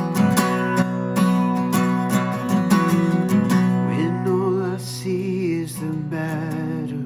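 Acoustic guitar strumming chords in a worship-song intro, with a wavering melody line coming in over it about four seconds in.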